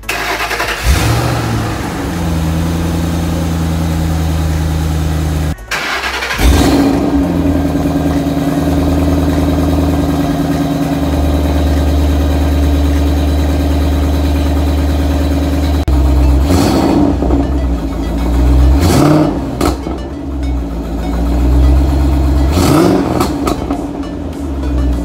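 2008 Ford Mustang GT Bullitt's 4.6-litre V8 cranking and catching about a second in, on a battery just revived by a charger after weeks of sitting, then idling steadily. Near the end the throttle is blipped a few times, the engine briefly revving up and settling back.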